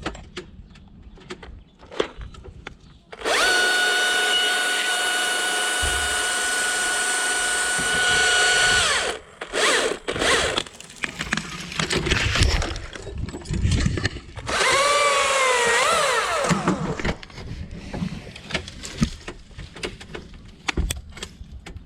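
A chainsaw cutting a limb: a steady high whine for about six seconds, then a second, shorter cut about fifteen seconds in whose pitch dips and recovers as the saw loads in the wood. Scattered knocks and clunks lie between the cuts.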